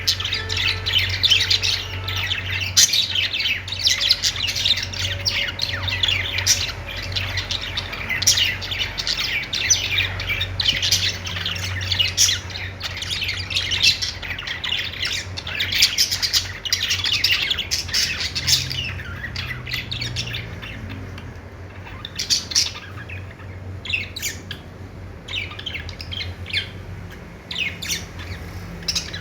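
Budgerigars chirping and warbling in dense, overlapping bursts of short, high calls, thinning out somewhat in the later part, over a steady low hum.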